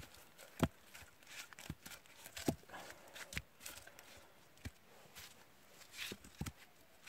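Short, irregular wooden knocks as sawn birch log rounds bump against one another and the bench frame while they are set and shifted into place, about seven in all, the loudest under a second in and about two and a half seconds in.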